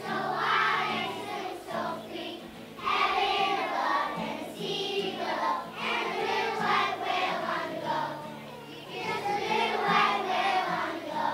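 A class of young children singing a song together as a choir.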